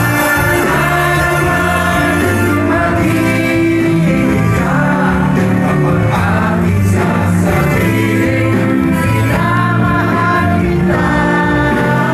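Live band playing a song with lead vocals sung into microphones over keyboards, drums and bass, loud and steady throughout.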